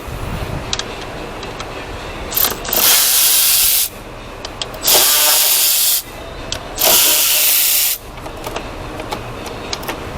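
Compressed air from a pneumatic shop tool hissing in three short blasts of about a second each, over steady workshop background noise.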